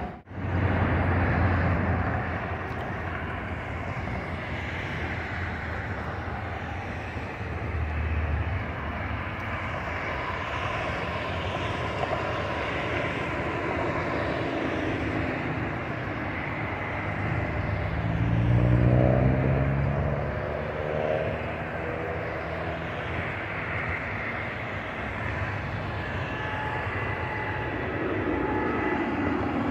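Airliner flying overhead, with a steady rumble of its engines. The sound swells about two-thirds of the way through, with a sliding pitch as it passes.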